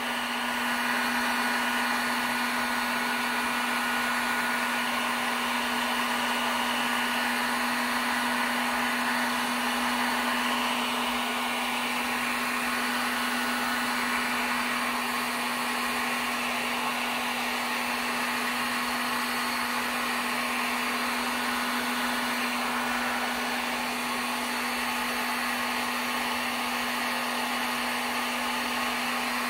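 Handheld heat gun running steadily, blowing hot air: a continuous rush of air over a steady low motor hum.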